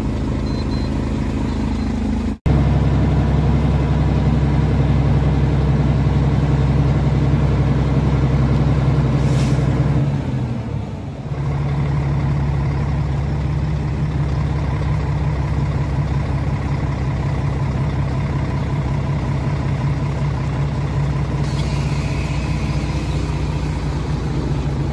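Heavy truck's diesel engine idling steadily, heard from underneath the truck, with brief hisses about nine seconds in and again near the end.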